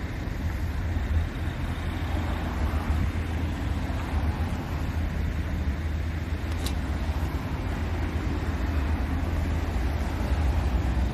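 Steady low rumble of road traffic, with a single sharp click about six and a half seconds in.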